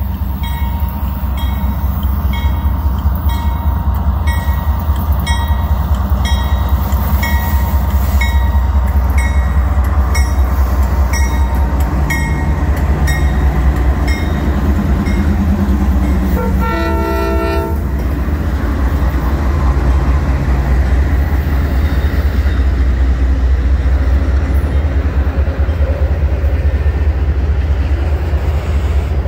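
Norfolk Southern diesel freight locomotives, led by AC44C6M No. 4000, pass close by with a loud, steady engine rumble, followed by intermodal flatcars carrying truck trailers rolling past. A bell rings about once a second while the train approaches, and a short horn blast of several tones sounds about halfway through.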